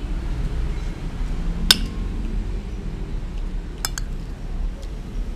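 Metal spoon clinking against a dinner plate during a meal: one sharp ringing clink a little under two seconds in, then two quick clinks near the end, over a steady low rumble.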